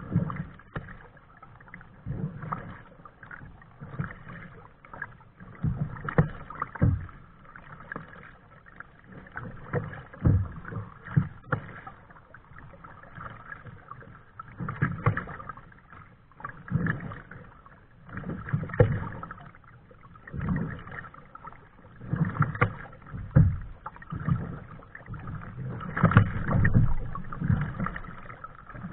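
Kayak paddling: the paddle blades dip and splash in the water in uneven strokes, one about every one to two seconds.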